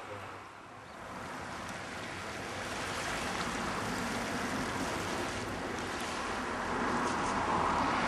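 Surf washing onto a rocky shore with wind buffeting the microphone, an even rushing noise that builds gradually louder.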